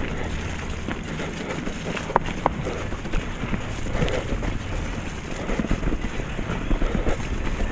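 Mountain bike rolling fast down a wet, muddy trail: tyres running through mud and puddles, with the bike's chain and frame rattling over roots and rocks. Wind buffets the camera microphone.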